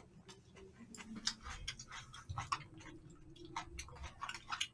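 Chopsticks clicking and tapping against plastic takeout food containers while eating: irregular light clicks, a few to several a second.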